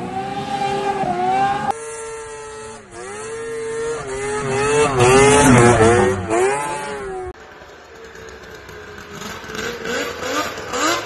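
Two-stroke snowmobile engines revving in three short clips, their pitch rising and falling with the throttle. The loudest stretch is in the middle, as a sled is pushed hard through deep powder. A fainter sled engine climbs in pitch near the end.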